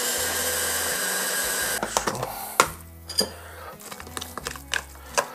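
A 1000 W hand blender's motor on its chopper bowl runs in one steady burst of about two seconds, chopping herbs with olive oil toward a paste, and cuts off sharply. A spoon then knocks and scrapes against the plastic bowl.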